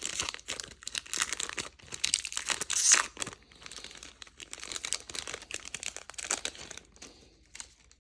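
Magic: The Gathering collector booster pack's foil wrapper crinkling and being torn open: a dense run of crackles, loudest about three seconds in, thinning out near the end.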